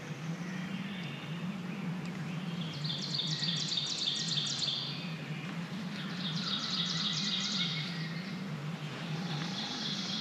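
A songbird singing a fast trill of quick repeated high notes three times, a few seconds apart, over a steady low rumble in the background.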